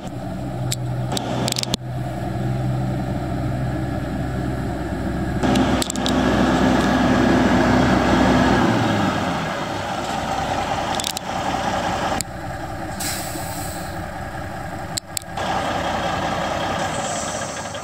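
A Caterpillar 3406B inline-six diesel in a 1987 Peterbilt 379 truck tractor, running as the truck drives. About a third of the way in it pulls harder and grows louder for a few seconds, then eases back. A short hiss of air comes a little after two-thirds of the way through.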